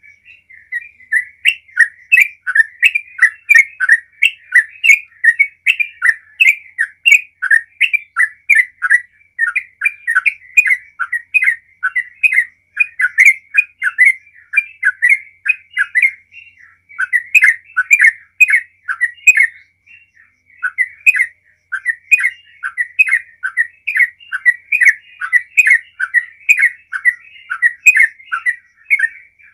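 Yellow-vented bulbul singing a long, near-continuous run of quick chirping notes, with a couple of brief pauses past the middle.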